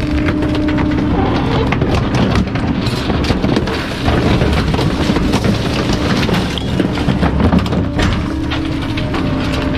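Bulky-item garbage truck running loud, with a steady drone that drops out in the middle and comes back near the end, over continual rattling and sharp knocks.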